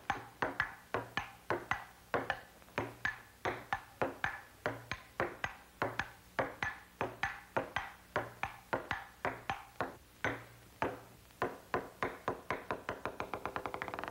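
Table-tennis ball being hit back and forth in a rally, each stroke a sharp click with a short ring, about three a second, speeding up to a rapid patter in the last couple of seconds.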